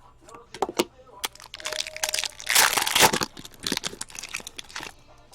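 Hockey card pack wrappers and cards being handled and torn open: a few sharp clicks, then a loud rustling tear lasting about two seconds in the middle, with smaller rustles after.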